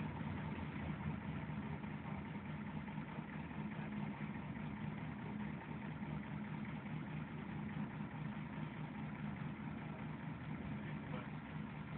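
Ikarus 280 city bus's diesel engine running steadily, heard from inside the passenger cabin as a low, even hum.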